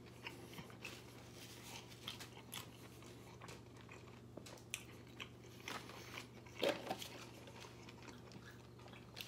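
Close-miked chewing of a mouthful of burrito: soft, wet mouth clicks and smacks scattered through, with one louder mouth sound about two-thirds of the way in.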